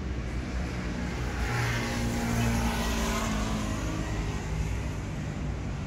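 A motor vehicle passing on the road, its engine and tyre noise swelling to a peak two to three seconds in and then fading.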